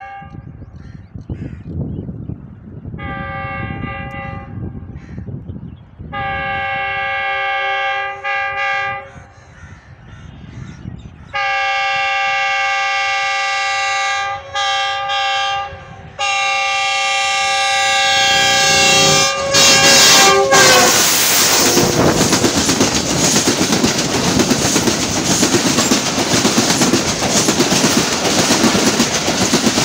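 Pakistan Railways GEU-20 (GE U20C) diesel-electric locomotive's horn sounding a series of blasts as the train approaches: a few short ones, then long ones of several seconds each. From about twenty seconds in, the loudest part is the locomotive and coaches passing close by, a steady loud rush with the wheels clattering on the rails.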